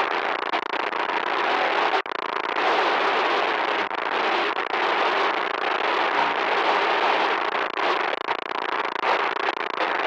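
Loud static noise, a steady dense hiss, cutting out for an instant about two seconds in.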